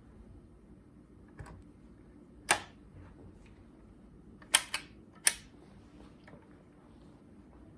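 Sharp clicks from the BSR C141 record changer's mechanism being handled: a faint click, then a loud click, a quick double click and another loud click over about three seconds.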